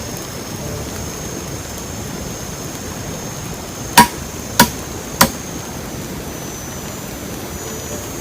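Three sharp knocks about half a second apart, like a tool striking, over a steady hiss of background noise.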